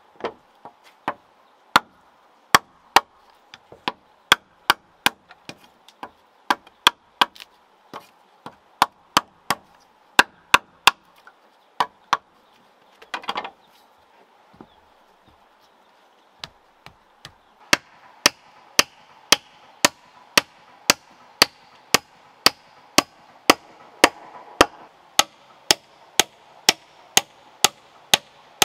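Machete chopping into a bamboo pole, each blow a sharp crack, at an irregular pace at first and then a steady two or so strokes a second. A longer rough rasp comes once, near the middle.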